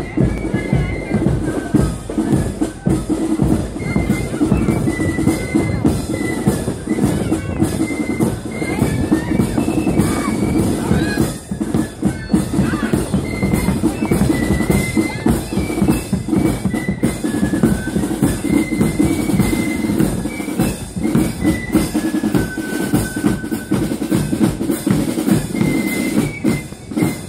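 Marching band playing on parade: side drums and a bass drum beat steadily under a high melody line.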